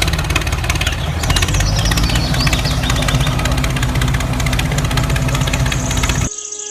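An engine idling with a rapid, even knock, cutting off suddenly near the end.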